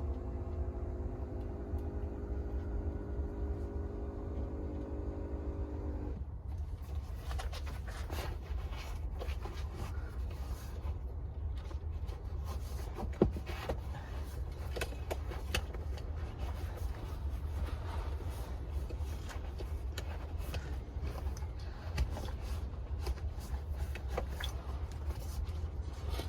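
A steady electric-motor whine over a low hum stops suddenly about six seconds in. Then come rustling, scraping and scattered clicks as a leather kick protector and its straps are handled and fitted to a car seat back, with one sharp click about halfway through.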